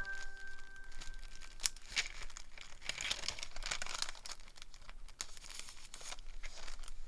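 Paper and translucent vellum pages of a handmade junk journal rustling and crinkling as they are handled and turned, in irregular bursts.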